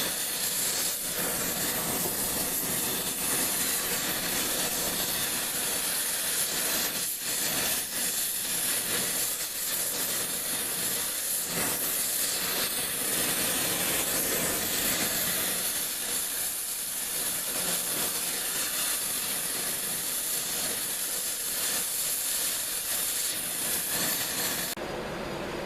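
Oxy-acetylene torch flame hissing steadily as it heats steel rod, then cut off sharply near the end.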